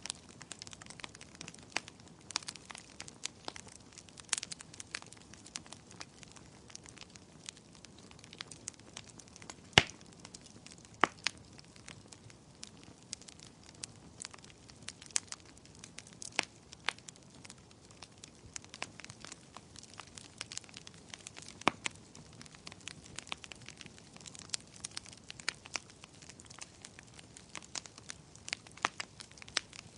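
Wood fire crackling in a fireplace: frequent sharp pops and snaps at irregular intervals over a soft, low hiss of burning, with a louder pop about ten seconds in.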